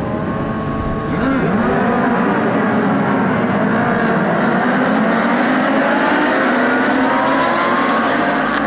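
A pack of racing motorcycles revving and accelerating away together from the starting grid, many engines rising in pitch through the gears at once. It gets louder about a second in as the bikes launch.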